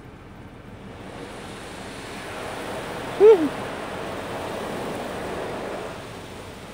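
Automatic car wash's cloth strips and water sweeping over the car, heard from inside the cabin as a rushing noise that swells from about a second in and fades near the end. About three seconds in, a short voice exclamation rises and falls in pitch.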